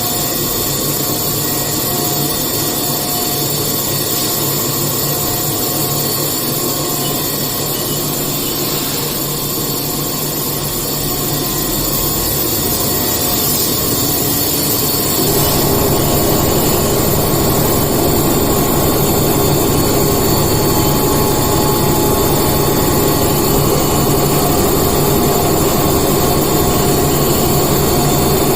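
Haas CNC vertical machining centre running a milling job: a steady mix of hum, whine and cutting noise. About halfway through it grows louder with a heavier hum.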